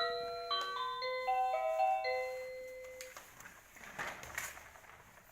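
A tinkling electronic melody of clean, bell-like single notes, as from a baby's musical toy, that fades out about two and a half seconds in. A few faint clicks follow near the end.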